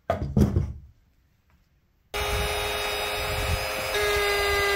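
A brief knock of the router being handled, then about two seconds in the Ryobi RRT1600 plunge router's electric motor comes in abruptly at full speed and runs steadily, a loud whine with several held tones.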